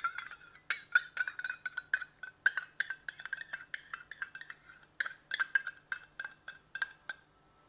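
Metal spoon scraping and tapping against a stainless steel bowl: rapid, irregular clinks, each with a short metallic ring.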